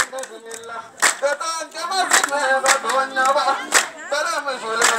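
Voices singing together, with a few sharp hand claps about a second apart.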